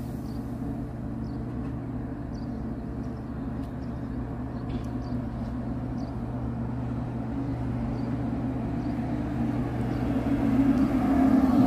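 JR Kyushu 783 series electric train moving slowly along the station platform, a steady electric hum that grows louder near the end as the cars pass close by with rumbling wheel and rail noise.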